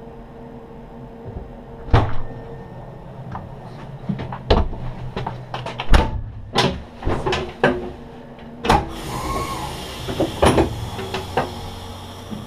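Irregular sharp knocks and clunks from a crew member moving about and handling things in a standing railcar's cab, over the steady hum of the car's equipment. A hiss joins about nine seconds in.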